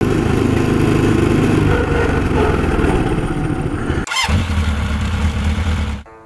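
A Hisun Pit King 200 mini bike's 196cc air-cooled four-stroke engine running for about four seconds. Then comes a quick whoosh and a steady low engine drone, which cuts off suddenly about six seconds in.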